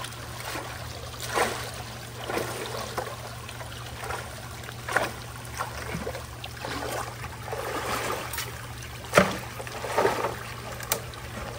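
Floodwater rushing into a clogged culvert inlet, with irregular splashes and scrapes as a long-handled tool jabs at the debris blocking the pipe mouth, the sharpest about nine seconds in.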